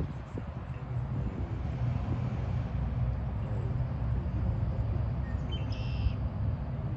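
Steady low outdoor rumble, with one short high-pitched chirp about six seconds in.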